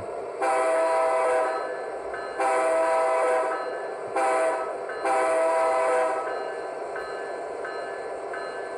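HO scale sound-equipped model diesel locomotive (Athearn Genesis SD70ACe) sounding its multi-chime horn through its onboard speaker in four blasts, long, long, short, long: the grade-crossing signal.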